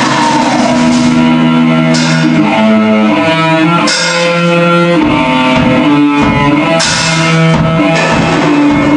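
Black metal band recording: electric guitar riff of held notes changing pitch, over drums with cymbal crashes about two, four and seven seconds in.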